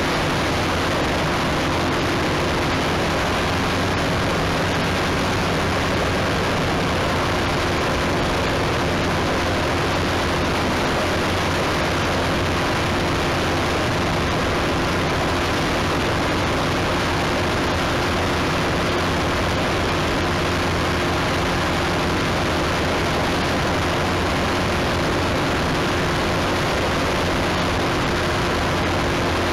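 Steady, unchanging in-flight noise on board an aircraft: a constant rush with a faint steady hum under it.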